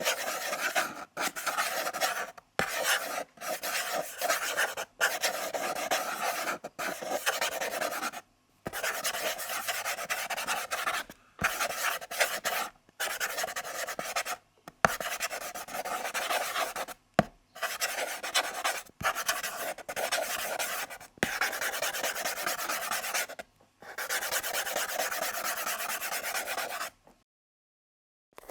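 Pencil writing on paper: scratchy strokes in runs of one to three seconds with short pauses between, and a couple of sharp ticks around the middle.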